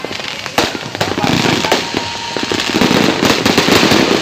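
Fireworks going off at close range: a rapid, dense barrage of bangs and crackles, with a sharp bang about half a second in.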